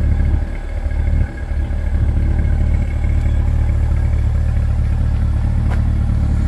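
Chevrolet Corvette Stingray's 6.2-litre V8 idling steadily with a deep, even hum.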